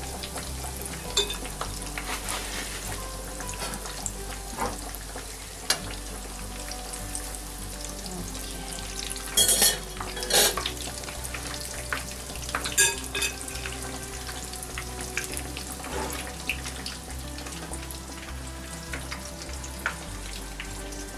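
Aubergine slices shallow-frying in seed oil in a pan: a steady sizzle full of small crackles and pops, with a few louder crackles about halfway through.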